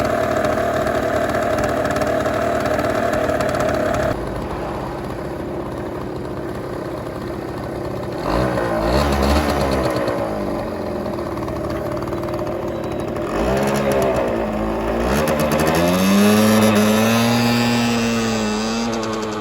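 Construction machinery engines running at a road works site, the engine note held steady at first, then rising and falling as the machines rev up and ease off several times.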